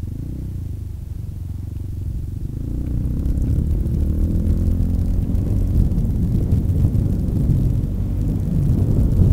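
Yamaha XT 350's single-cylinder four-stroke engine running under way, heard from on board. About three seconds in the revs rise and it gets louder as the bike pulls onto rough dirt track.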